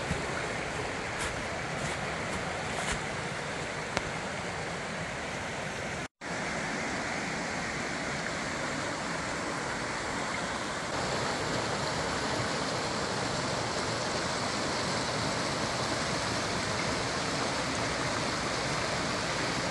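Steady rush of a fast, rocky woodland stream pouring over boulders and through a stone arch. The sound cuts out abruptly for a moment about six seconds in, and a few light clicks come in the first three seconds.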